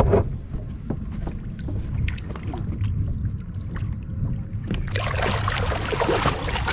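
A low rumble of wind on the microphone, then about five seconds in a hooked cobia thrashing and splashing at the surface as it is grabbed beside the boat.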